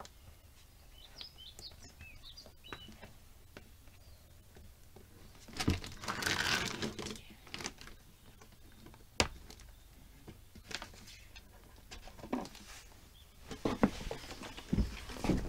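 Handling noises from a chainsaw being refilled: about a second and a half of rustling scrape about six seconds in, then scattered sharp clicks and knocks, more of them near the end, as a tank cap is worked on the saw's housing. Faint bird chirps in the first few seconds.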